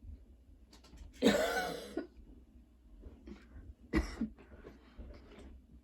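A girl coughing: one long, harsh cough about a second in, then a short, sharp cough with a smaller one right after it near four seconds in. The cough is a persistent one that keeps coming in fits despite medication.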